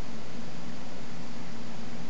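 Steady background hiss with a low hum underneath, even throughout.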